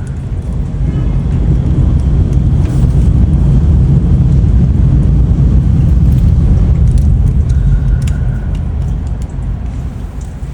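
A loud, deep rumble that swells over the first couple of seconds, holds, and fades near the end.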